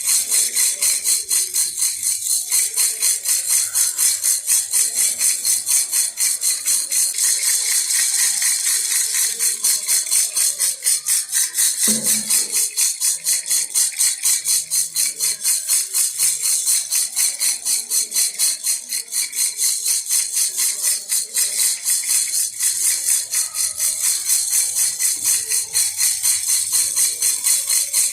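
Baby rattle shaken steadily in a regular rhythm, about four shakes a second, giving a bright, high jingling rattle. A brief low thump about halfway through.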